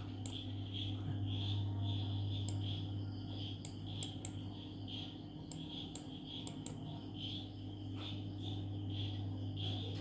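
Scattered sharp clicks from a computer mouse and keyboard, a dozen or so at uneven intervals, over a steady low hum and a continuous pulsing chirp of crickets.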